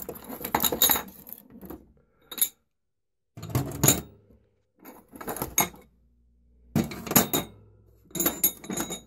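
Sheet-metal legs of a Grizzly Cubic Mini wood stove clinking against each other and clattering as they are set down on a metal counter, in a series of short separate bursts.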